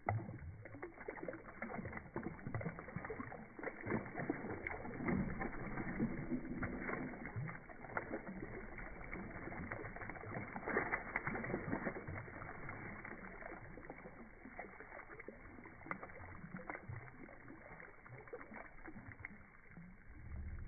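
A shoal of fish feeding at the water surface: a dense, irregular run of small splashes and slaps as they thrash and gulp at the food.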